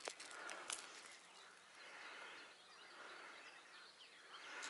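Near silence: faint outdoor ambience with a little faint birdsong, and two light clicks in the first second.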